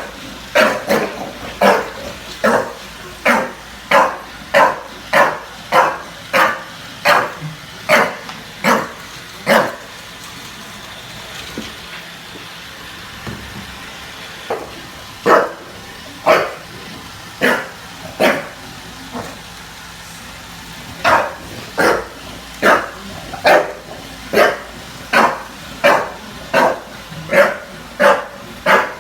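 Bulldog barking over and over in a steady series, about one or two barks a second, stopping for several seconds a third of the way through, then barking again in bursts that run on near the end.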